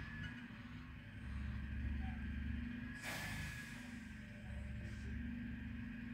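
Refuse collection lorry's diesel engine idling with a low, pulsing hum, and a short hiss of air about three seconds in.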